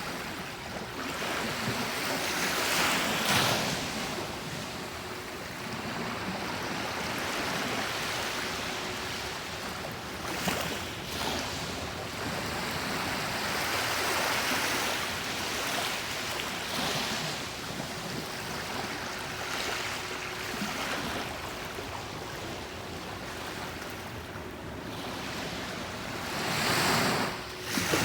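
Calm sea waves washing onto a beach, surf swelling and fading every few seconds, with a louder wave breaking near the end.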